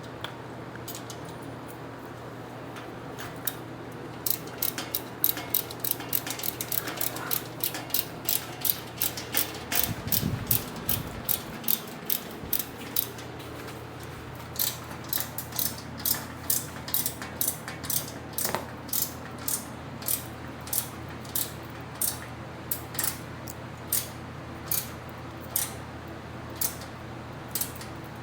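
Ratchet wrench clicking in a steady run of short strokes, about two to three clicks a second, as bolts on a patio swivel chair are tightened, with a brief pause near the middle.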